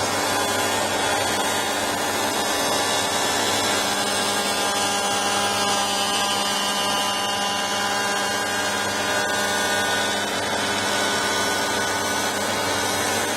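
Charnwood W583 cast iron planer thicknesser running steadily, a constant machine whine with a steady hum under it.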